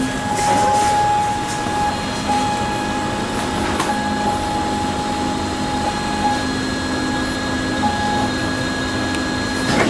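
3D printer running, its stepper motors giving off a steady tone that shifts and restarts every second or two as the print head moves and lays down melted filament.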